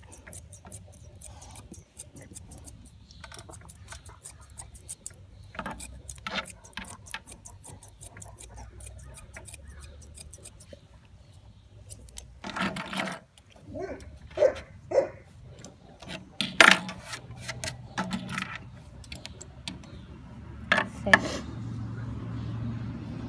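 Thinning shears snipping through a dog's foot fur: a quick run of small metallic clicks through the first ten seconds or so. After that come a few louder scuffs and knocks, and near the end a metal comb is drawn through the fur.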